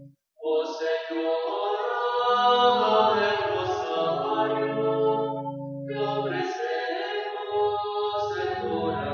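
A Marian hymn sung in long, held notes over a steady low drone. There is a brief pause just after it begins, and a new phrase starts about two-thirds of the way through.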